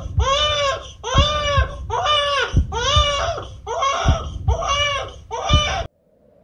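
Infant crying in short, high-pitched wails, about two a second, that cut off abruptly near the end.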